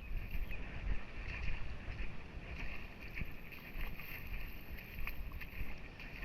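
Wind rumbling on the microphone in uneven gusts, with a faint steady high hiss and a few light clicks.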